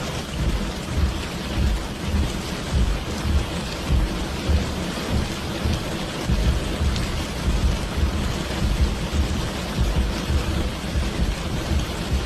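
Steady rain with a continuous low rumble of thunder beneath the hiss.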